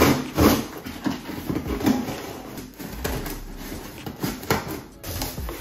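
Scissors cutting along the packing tape on top of a cardboard box: an irregular run of scrapes, snips and clicks with cardboard rustle.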